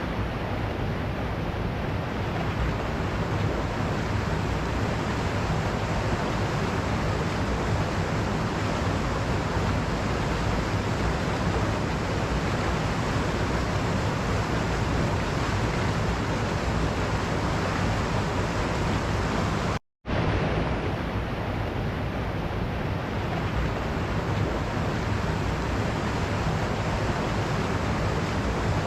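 Waterfall running: a steady, even rush of falling water. It cuts out for a split second about twenty seconds in, then carries on unchanged.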